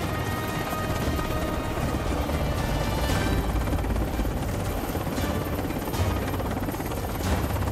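Helicopter hovering with steady rotor and engine noise as it lifts a sling load of cargo off a ship's deck in a vertical replenishment, with background music under it.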